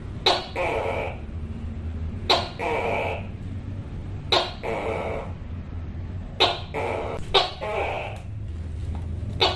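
Tokay gecko giving its two-note "to-kay" call, a sharp short first note followed by a longer hoarse one. The call repeats about every two seconds over a steady low hum.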